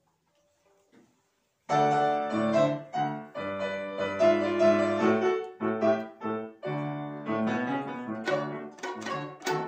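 Grand piano playing the introduction of a cha-cha: short rhythmic chords separated by brief gaps, starting sharply about two seconds in after a near-silent pause.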